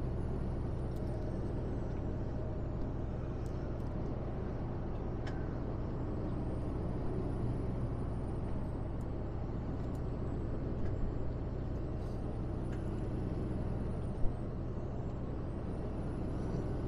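Steady engine and road drone inside the cab of a Mercedes-Benz Actros truck cruising on a motorway, with a single sharp click about fourteen seconds in.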